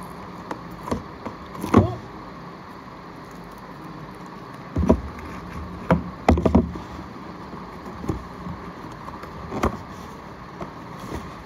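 Hands handling and opening a cardboard toy box: scattered knocks, taps and scrapes of the cardboard, with the sharpest ones about two seconds in and around five to seven seconds in, over a steady background hum.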